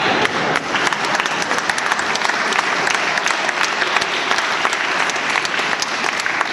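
Audience applauding: a dense, steady patter of many hands clapping in a hall.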